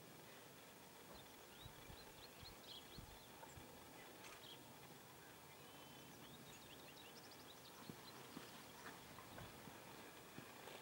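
Near silence outdoors: faint bird chirps now and then, and a few soft footsteps of dress shoes on a concrete patio in the last few seconds as a soldier steps off.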